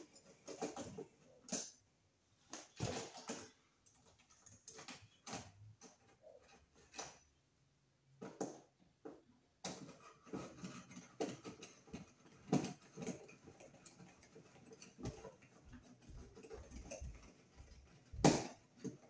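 Hand screwdriver driving 6-32 screws to fasten a light-fixture mounting bracket to a metal electrical box: irregular small clicks, scrapes and metal knocks, with one louder knock near the end.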